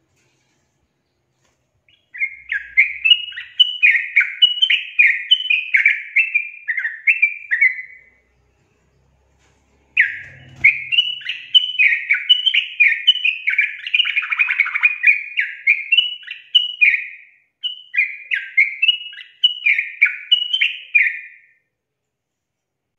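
Yellow-vented bulbul singing its loud chattering song: three bursts of quick, short warbled notes, the first about two seconds in and the last ending a little before the end.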